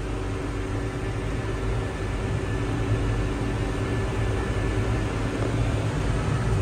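Vehicle engine running steadily while driving, heard from inside the cab, with a constant low hum and road noise.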